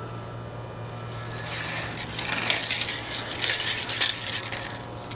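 Steel tape measure blade retracting into its case: a metallic rattling and clicking from about a second in until near the end, loudest at the start.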